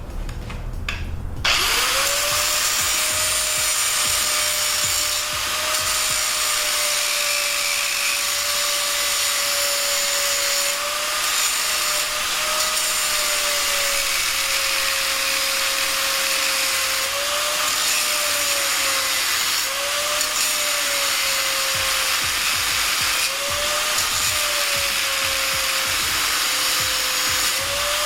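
Electric angle grinder spins up about a second and a half in and cuts into the remnant of a damaged wheel bearing left on the hub's spindle. Its motor tone sags and recovers again and again under load, over a steady hiss of metal grinding.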